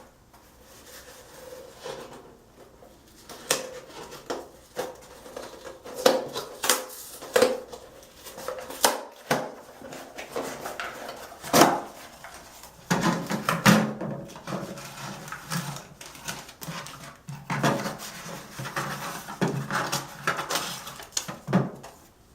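Handling noises from opening a cardboard shipping box and its packaging by hand: scattered knocks and clicks with stretches of rustling and crinkling.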